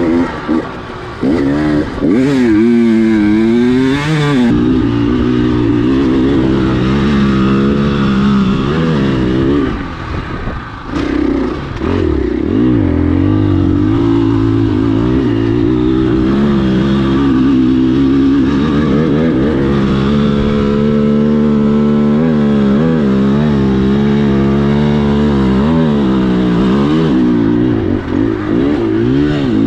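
KTM enduro dirt bike engine under way on a dirt trail, revving up and down with the throttle, with a brief let-off about ten seconds in.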